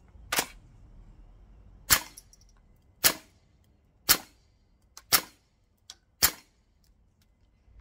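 Airsoft gas blowback rifle, a Double Eagle Noveske N4 MWS clone, firing six single shots about a second apart, each a sharp crack of the shot and the bolt cycling.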